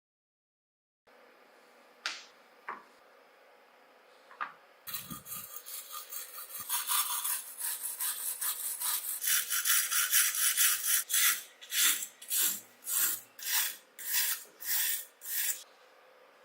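A hand tool scraping back and forth over a surface, after a few light clicks. The scraping runs on continuously, then breaks into separate strokes about two a second and stops shortly before the end.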